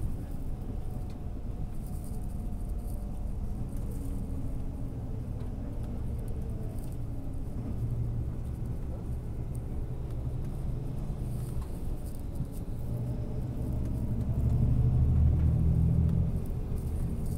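Coach bus running down the road, heard from inside the cabin: a steady low engine and road rumble that swells louder near the end.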